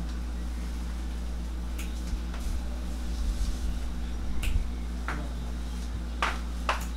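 A handful of short, sharp clicks and taps, the last two close together near the end, with a few soft low knocks in the middle, over a steady low hum.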